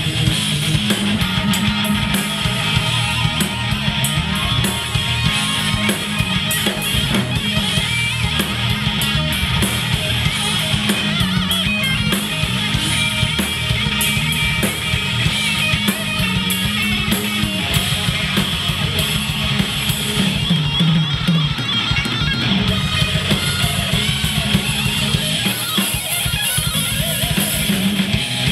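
Rock band playing live: electric guitar and bass guitar over a drum kit.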